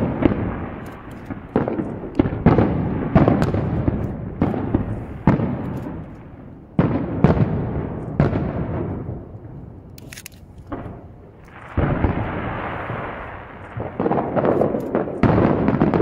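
Aerial firework shells bursting in quick succession, each a sharp boom that trails off. The booms come thick for the first half, ease off in the middle, and pick up again near the end.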